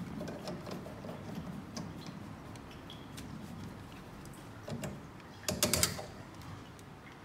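Hands working on a kitchen faucet's fittings and corrugated hoses under a sink during a faucet repair: small scattered clicks and knocks, with a short burst of louder clattering clicks about five and a half seconds in.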